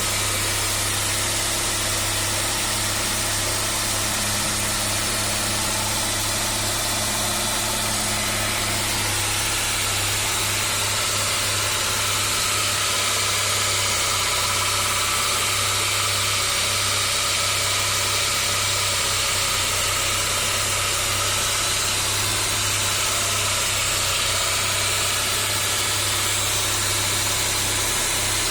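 1998 Saab 9-3 2.0's four-cylinder engine idling steadily with a rattling noise from the engine.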